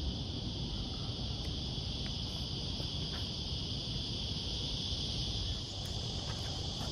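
Steady high-pitched insect chorus with a low rumble underneath and a few light clicks.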